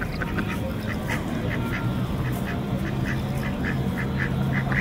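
Ducks giving short repeated calls, a few a second, coming faster in the second half.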